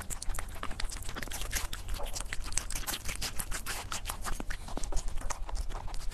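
Rabbit chewing watermelon taken from a fork: a quick, uneven run of small wet crunches.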